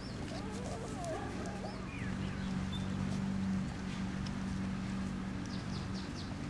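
Five-week-old Doberman puppies whimpering with wavering, high little cries through the first couple of seconds and a few short squeaks near the end, over a steady low hum.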